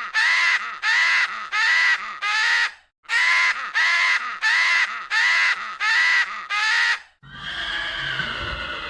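An animal calling over and over, short harsh calls at about two a second, in two runs broken by a brief pause; a different, longer animal sound takes over about seven seconds in.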